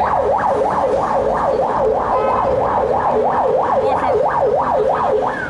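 Electronic emergency-vehicle siren in a fast yelp, its pitch rising and falling about three times a second; near the end it switches to one long falling sweep.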